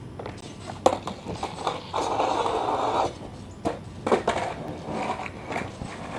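Skateboard on a low metal flatbar: sharp clacks of the board, then about a second of grinding scrape along the rail, then more hard clacks as the board hits the ground and flips up.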